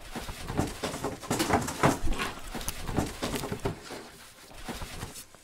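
Irregular rustling and handling noises: a plastic bag crinkling as it is handled, with light knocks.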